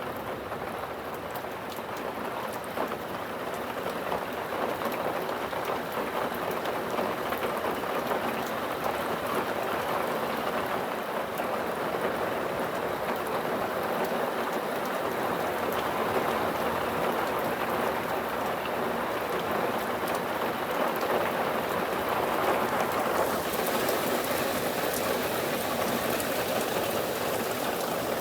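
Steady rain from a thunderstorm pouring down and pattering on surfaces, growing a little heavier a few seconds in, with a brighter hiss coming in near the end.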